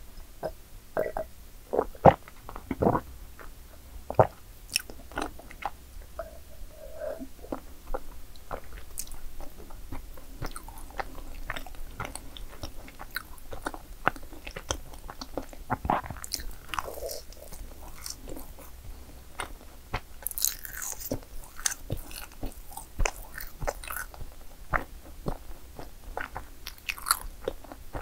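Close-miked eating sounds: bites into madeleines and chewing, with crisp crunches here and there.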